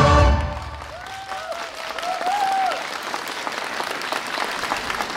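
Recorded music ends about half a second in, then an audience applauds, the clapping growing a little louder after about two seconds. A voice calls out briefly over the clapping.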